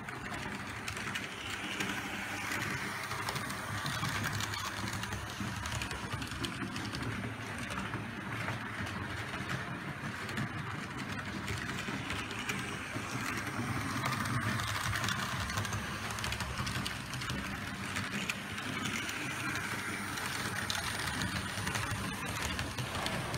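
Märklin H0 model trains, Ludmilla diesel locomotives pulling wagons, running on metal M-track: a steady rattle of wheels on the rails over a low motor hum, swelling and easing several times as trains pass.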